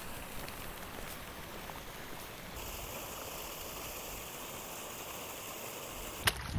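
Small hillside stream running and splashing over rocks, a steady rush of water that turns brighter and hissier about halfway through, with a short knock near the end.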